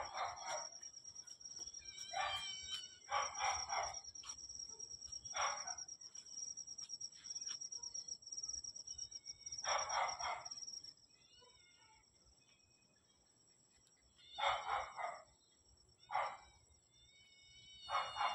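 Roosters crowing at dawn, about eight calls spaced a few seconds apart, some nearer and some farther off. A steady high-pitched tone sits behind them and stops about eleven seconds in.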